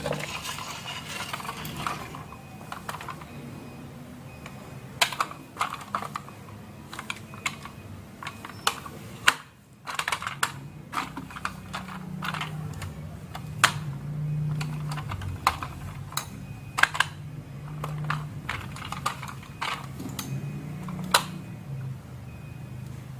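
Marbles rolling down a wooden HABA marble run and through clear plastic tubes: a low, continuous rolling rumble with many sharp, irregular clicks as they strike the track and knock together.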